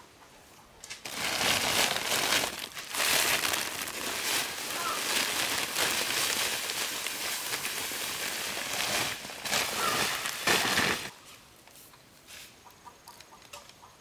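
A loud rustling, crinkling noise that starts about a second in, runs for about ten seconds with two short breaks, then stops abruptly.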